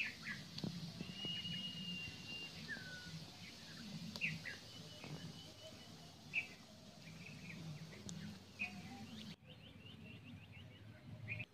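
Birds chirping in short calls, with one longer whistled note early on, over a faint hiss and wet squelching from hands mixing chicken legs in beer that is foaming after salt was added.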